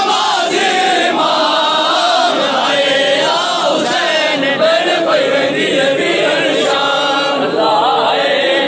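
Many men's voices chanting a noha, a Shia mourning lament, together in unison, the chant running on without a break.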